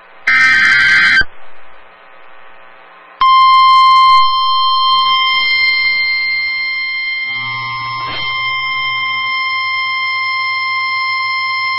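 Emergency Alert System broadcast: the last of the SAME digital header bursts, a harsh one-second electronic screech, then after a short pause a long steady single-pitched attention tone that holds for about nine seconds, announcing the incoming warning. Faint program audio runs underneath.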